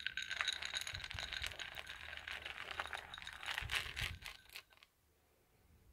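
Hop pellets sliding and rattling out of a glazed bowl and pattering onto the krausen foam of fermenting beer, a dry-hop addition. A dense crackle of many small clicks that stops a little before the end.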